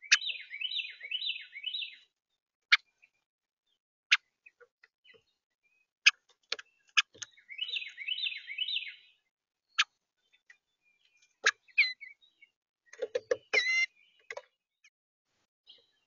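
An eastern bluebird pecking at seed on a plastic feeder tray, heard as sharp single clicks every second or two. A songbird twice gives a short run of rapid repeated chirping notes, and near the end there is a quick flurry of knocks with a brief call.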